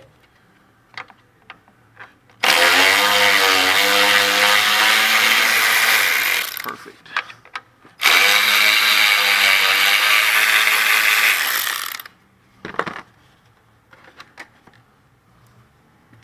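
Cordless electric ratchet running in two bursts of about four seconds each, a second or so apart, spinning bolts out. There are light clicks and handling knocks between the bursts.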